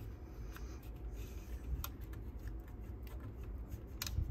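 Light clicks and small rattles of fingers handling the metal tape transport of a Pioneer CT-91a cassette deck. A few scattered clicks, more of them near the end, over a faint low hum.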